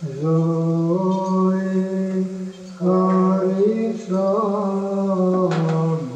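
Male voice chanting Orthodox Byzantine chant in slow phrases of long held notes, with small ornamental wavers and brief breaths between phrases.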